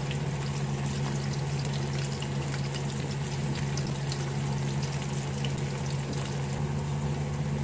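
Breaded chicken strips deep-frying in hot oil in a wok: a steady sizzle with fine crackling from the bubbling oil, over a steady low hum.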